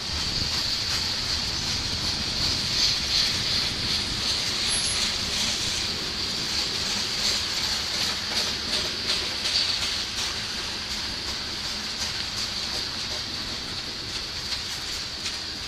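Covered hopper cars of a freight train rolling past: a steady rumble with wheels clicking over the rail joints, and a steady high-pitched tone over it. It gets a little quieter in the last few seconds.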